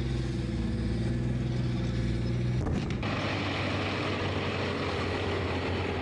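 Merkava tanks' diesel engines running as the tanks drive, a steady low drone. About three seconds in it changes abruptly to a rougher, noisier engine sound from another tank.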